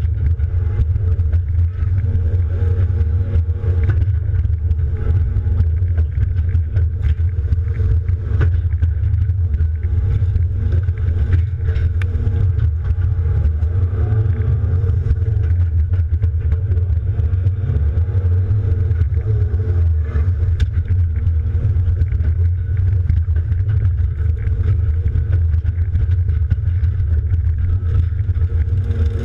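John Deere 270D LC excavator's diesel engine running steadily, heard from inside the cab, with occasional short clicks and knocks.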